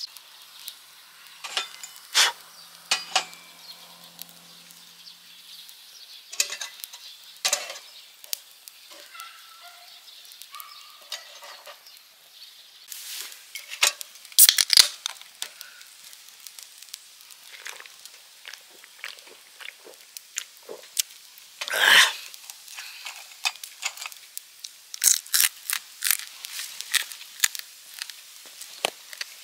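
Campfire crackling with scattered sharp pops, and a knife shaving kindling from a split log. An aluminium can of Suntory The Premium Malts beer is snapped open at its pull tab with a short hiss, the loudest sound here.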